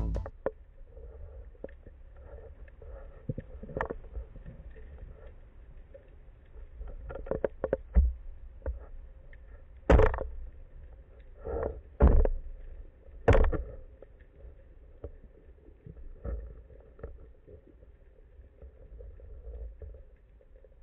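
Underwater sound picked up by a diver's camera: a low, steady water rumble with a faint hum, broken by a few sharp knocks and thumps, the loudest about ten, twelve and thirteen seconds in.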